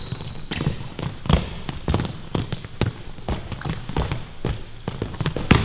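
Basketball bouncing on a court, a sharp knock about every half second, with short high squeaks of sneakers on the court.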